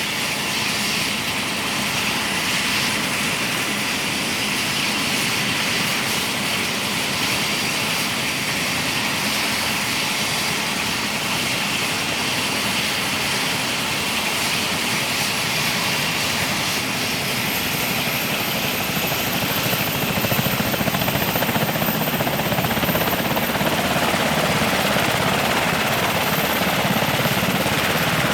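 Military helicopter turbine engines running, a steady dense noise with a thin high-pitched turbine whine that climbs in pitch about two-thirds of the way through, the whole growing slightly louder after that.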